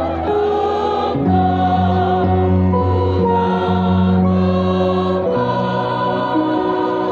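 Mixed choir of men and women singing a slow song, holding long notes that change about a second in and again about five seconds in.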